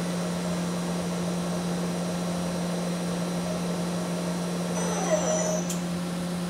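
Kuraki KBT-11WA horizontal boring mill running with a steady machine hum while its spindle speed is changed from the control. About five seconds in a short falling whine ends in a sharp click.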